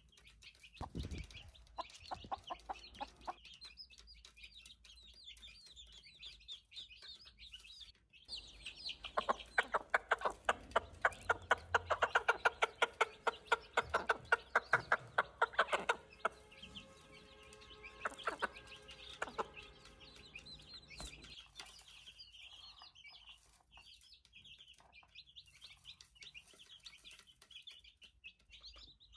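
Chicks peeping continuously, with an adult chicken clucking in a fast, loud run of calls through the middle.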